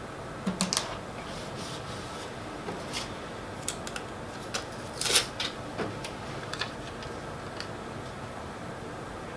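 Handling of a sticky-backed paper template: scattered short paper rustles and light clicks as it is peeled from its backing and pressed onto a board, the loudest rustle about five seconds in, over a steady faint room hiss.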